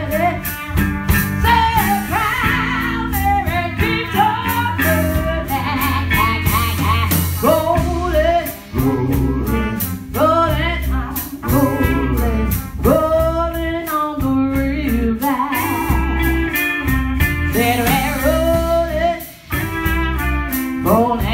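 Live band playing an upbeat soul-rock groove: electric guitar, drum kit and a strong bass line, with a trumpet playing a sliding melody line over the top.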